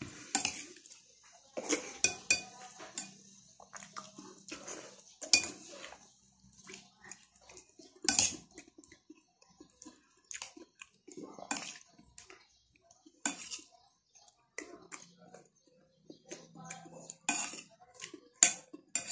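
Metal spoon clinking and scraping against a plate while eating, in short irregular clinks spread over the whole stretch.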